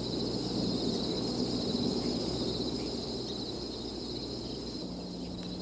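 Steady high chirring of insects over a low, steady rumble and hum of outdoor background noise.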